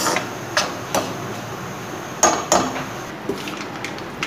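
Metal ladle knocking and scraping against a non-stick kadai while stirring, with about five sharp clinks in the first three seconds and only fainter ticks after.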